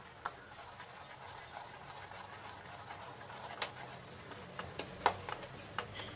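Plastic spoon stirring flour into jaggery syrup in a plastic bowl, with scattered sharp clicks as the spoon knocks against the bowl, several in quick succession in the second half.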